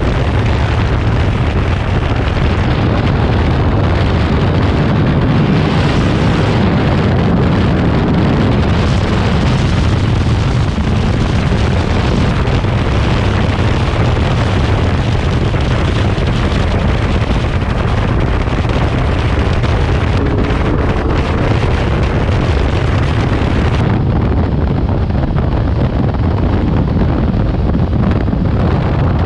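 Heavy wind buffeting on a helmet-mounted camera microphone while riding a Yamaha Tracer 900 GT at road speed, with the motorcycle's engine running underneath. The upper hiss eases a few seconds before the end.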